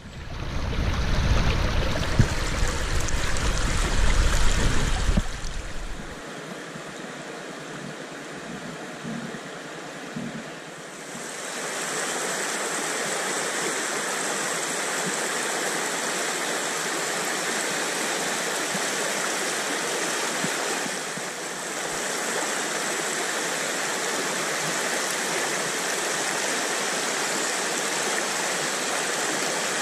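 River rapids rushing over shallow rocks: a steady hiss of white water. A loud low rumble sits under it for the first six seconds, and from about eleven seconds in the rushing water is louder and steady.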